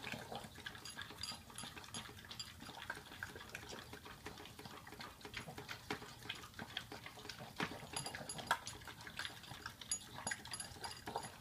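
Several Boston terriers licking and lapping yogurt from their bowls: a steady run of quick, irregular wet clicks.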